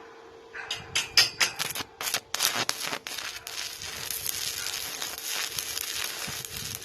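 Stick welding arc from a small inverter welder, struck with a partly used rod: it sputters and catches in several sharp bursts over the first few seconds, then settles into a steady crackling burn.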